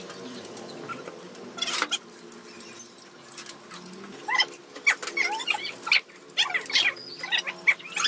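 Short, high animal calls that slide up and down in pitch, coming thick and fast from about four seconds in, over a steady low hum. A brief burst of noise comes just before two seconds in.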